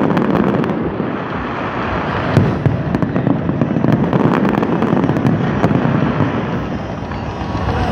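Fireworks display bursting and crackling continuously, a dense crackle with many sharp bangs, the loudest about two and a half seconds in.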